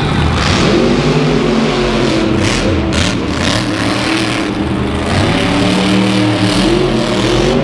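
Monster truck engine revving, its pitch rising and falling several times.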